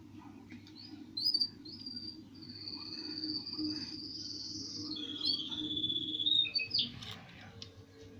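A bird singing: a few short chirps, then long, high, clear whistled notes held for a couple of seconds each, the second a little lower than the first.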